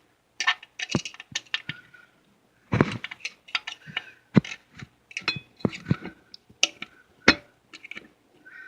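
Irregular metal clicks and clinks of a hand tool and transmission parts knocking together, some with a short metallic ring.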